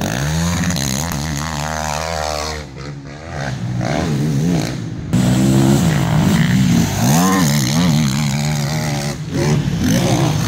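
Racing quad bike engines revving hard as the quads pass on a dirt track, the pitch rising and falling with the throttle. The sound drops briefly about three seconds in, then a louder engine comes in suddenly about five seconds in.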